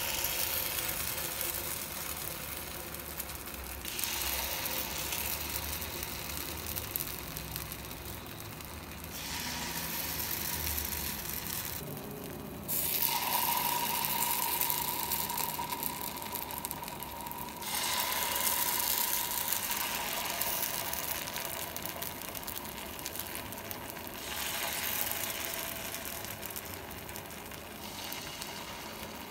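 Jackfruit-and-jaggery batter sizzling as it is spooned into the hot, ghee-greased cavities of a paniyaram pan: a steady crackling hiss whose level jumps up and down abruptly several times.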